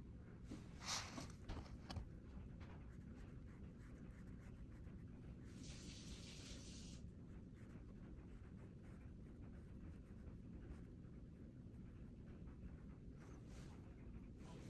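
Faint sounds of watercolor painting on a hot-press paper block: a few soft knocks and rubs as the block is shifted by hand about a second in, then a round brush scratching across the paper for about a second and a half, with more faint scratches near the end, over a low steady hum.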